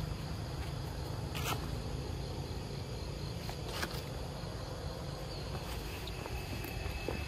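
Forest ambience: a steady drone of insects over a low rumble, with brief crackles about a second and a half in and again near four seconds.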